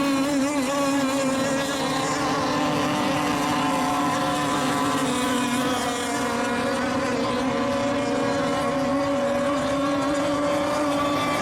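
Engines of several radio-controlled racing boats running on the water in a steady, even-pitched buzzing drone as the boats circle at part throttle while milling before the start.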